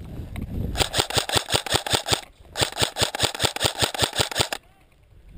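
Airsoft rifle firing two full-auto bursts of about ten shots a second, each burst lasting about one and a half to two seconds, with a short pause between them.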